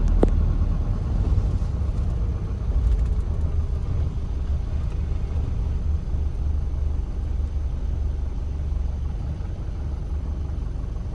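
A steady low engine rumble with a short click about a quarter of a second in; the sound cuts off abruptly at the end.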